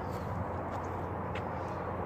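Steady outdoor background noise with a low rumble, with a few short, high bird chirps.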